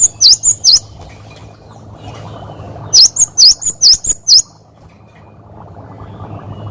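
Cinereous tit (gelatik batu) singing: quick runs of sharp, high whistled notes, four at the start and about six more around three seconds in, with a steady low hum underneath.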